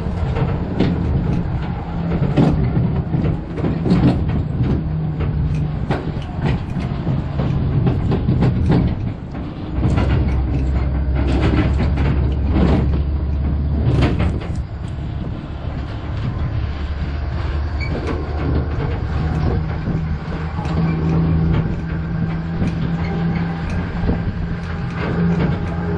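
Open-air trailer tram in motion: a steady low hum with frequent rattles and knocks from the carriages, thickest in the first half, the hum deepening about ten seconds in.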